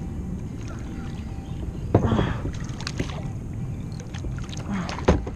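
Steady water noise around a plastic fishing kayak as a hooked bass is played in, with two sudden thumps, one about two seconds in and one near the end.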